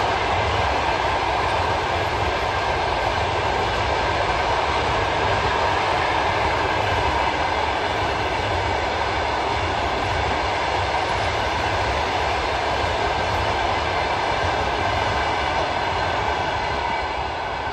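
Passenger train coaches rolling past, a steady rumble of steel wheels on the rails.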